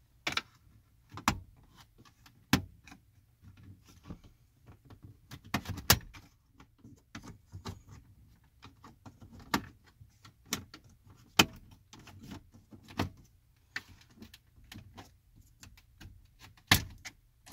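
Plastic trim-removal tools prying the dashboard radio bezel of a 2015 Kia Soul, with irregular sharp clicks and snaps of plastic as the retaining clips are worked loose.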